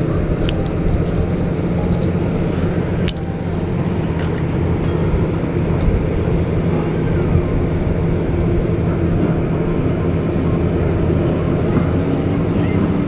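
A steady low motor-like hum at an even level, with a few sharp clicks over it, the loudest about three seconds in.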